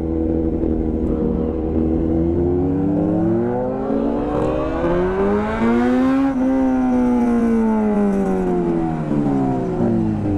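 Motorcycle engine pulling through one long climb in revs for about six seconds, then falling away as the throttle closes, over a steady low engine drone.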